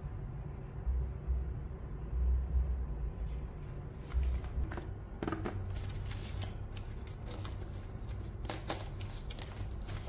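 Keyboard parts being handled by hand: plastic wrapping rustling and crinkling, with light clicks and taps, over a low steady hum. The rustling starts a few seconds in and gets busier about halfway through.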